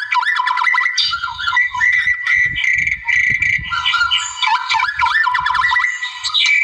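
White-rumped shama singing without a break: a fast run of varied clear whistles, trills and rising-and-falling sweeping notes.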